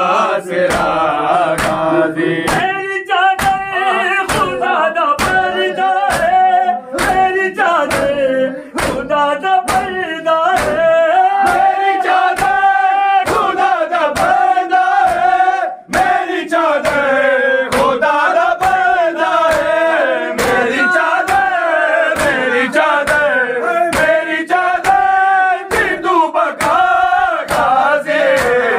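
Male voices chanting a nauha, a Muharram lament, with a crowd joining in. A steady beat of sharp slaps, about two a second, runs under the chant, typical of matam (chest-beating) by the mourners.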